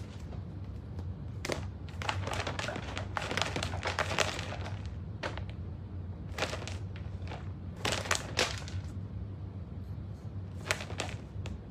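Rabbits moving about a playpen: scattered bursts of crackling and rustling, in several short clusters, over a steady low hum.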